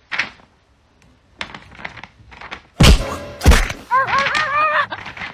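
Two loud thunks about half a second apart, then a high, wavering cry from about a second later onward.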